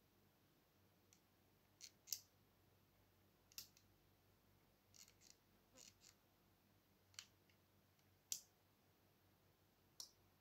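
Small board-mounted relays clicking as they switch: about a dozen faint, sharp clicks at irregular intervals. The last one, near the end, switches the room lights off.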